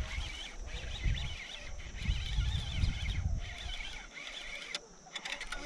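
Fishing reel being worked in short spells while a hooked smallmouth bass is fought from a kayak, with low rumbling bumps on the microphone.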